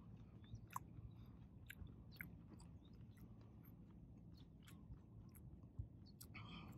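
Faint close-up chewing of a mouthful of octopus poke, with scattered small wet mouth clicks and a low steady hum underneath. A short louder smack or swallow comes near the end.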